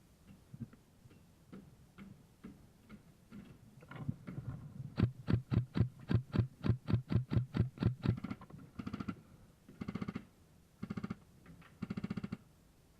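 Airsoft guns firing: a fast, even string of single shots, about four a second, followed by several short full-auto bursts of about half a second each.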